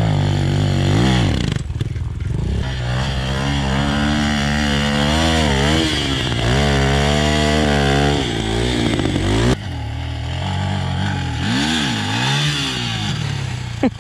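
Single-cylinder 250 cc dirt bike engines revving hard, the pitch rising and falling in repeated surges while a rear wheel spins in loose sand on a slope. The engine sound changes abruptly about nine and a half seconds in.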